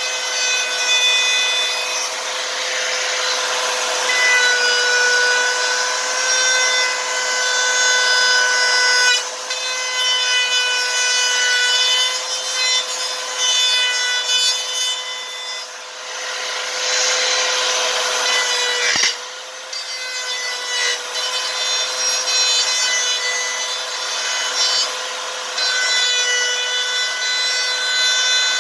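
Router motor running with a steady high whine while its bit cuts through the board for the speaker opening, dipping briefly about two-thirds of the way through.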